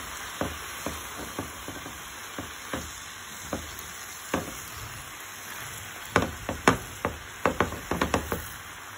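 Swiss chard sizzling in a frying pan as it is stir-fried, with scattered clicks and scrapes of a wooden spatula against the pan. The clicks come thick and fast for a couple of seconds about six seconds in.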